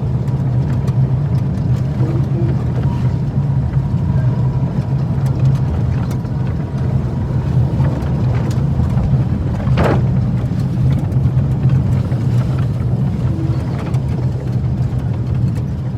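Steady low engine drone, with a brief higher-pitched sound about ten seconds in.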